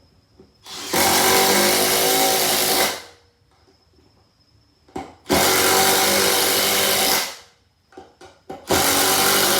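Milwaukee M12 Fuel Gen 2 impact driver driving 3-inch wood screws: three runs of impact hammering, each about two seconds long, with short pauses between them.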